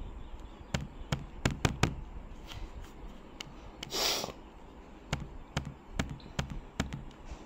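More than a dozen sharp, irregular taps and clicks, with a brief hiss about four seconds in.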